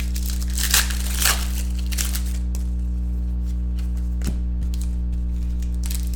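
Trading cards and a foil pack wrapper being handled and shuffled: a few short crinkles and scrapes over a steady electrical hum.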